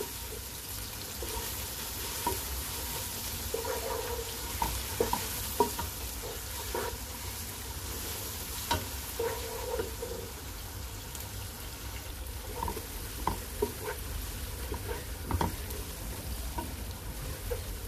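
Sliced onion with chopped ginger and garlic sizzling in hot oil over medium heat, stirred with a wooden spatula that scrapes and knocks against the pot now and then.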